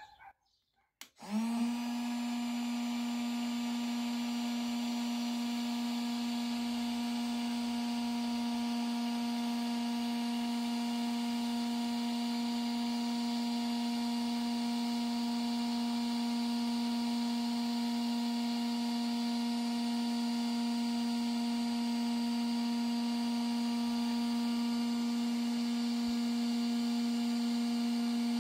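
Parkside PHLGA 20 Li-A1 cordless heat gun switched on about a second in: its fan motor spins up quickly, then runs with a steady hum and a hiss of blown air, on its highest 550 °C setting.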